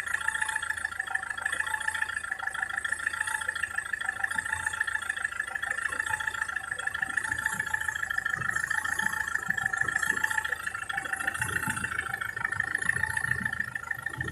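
SsangYong Kyron diesel engine running with a fast, even clatter, with a few dull low knocks near the end.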